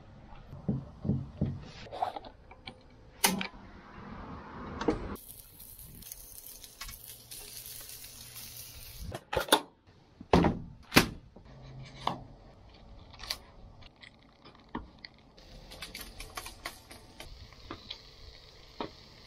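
A string of fish-preparation and cooking sounds: handling knocks and clicks, a few seconds of water rushing that start and stop abruptly, several sharp knocks, then the light hiss and crackle of fish strips sizzling on a gas hotplate near the end.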